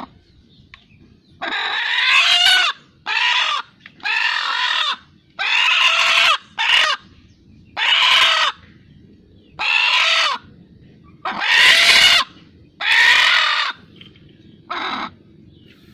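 A chicken making an odd, repeated call: about ten loud cries, each up to about a second long, with short pauses between them, the last one shorter and quieter.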